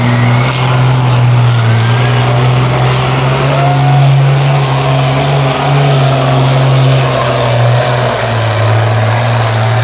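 Competition pulling tractor's engine at full throttle on its run down the pulling track, a loud steady low drone.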